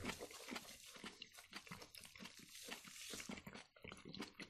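Quiet chewing and eating sounds: soft irregular clicks and crunches of people chewing food.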